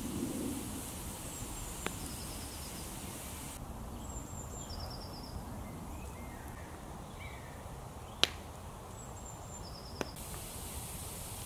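Woodland ambience: a steady outdoor hush with short, high bird calls a few times, and a few sharp pops from the wood campfire, the loudest about eight seconds in.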